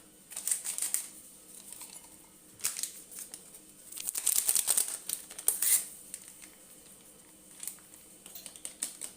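Paper sachets of baking powder crinkling and being torn open, in several short rustling bursts with a few light ticks near the end.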